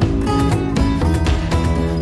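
Background music with plucked and strummed guitar over a steady beat.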